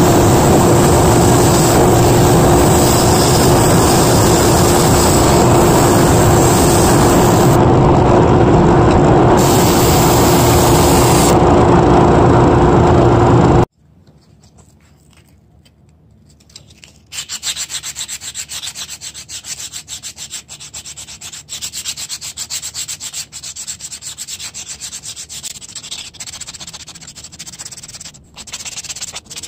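Drill press spinning a drum sander, a loud steady whir with a hum, as a walnut butter-knife blank is pressed against the sanding sleeve; it stops abruptly about 14 seconds in. A few seconds later comes rapid rasping of the walnut knife being hand-sanded with a folded sheet of sandpaper, stroke after stroke.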